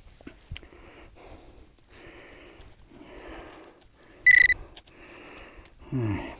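A metal detector gives one short, high beep over a buried target about four seconds in. Around it are soft swishing or breathing sounds about once a second, and a short grunt near the end.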